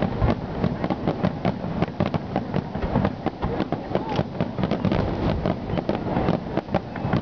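Aerial firework shells bursting in a dense finale barrage: many sharp bangs a second, overlapping, over a continuous rumble.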